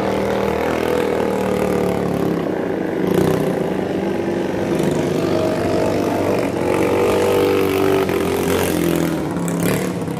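Racing katinting longtail boat's engine running flat out as the boat speeds past, its pitch wavering up and down.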